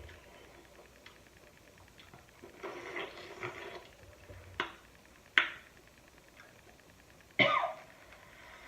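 Close-up eating sounds of a seafood boil: a soft rustle, two sharp cracks of crab or crawfish shell, then a louder wet mouth sound near the end.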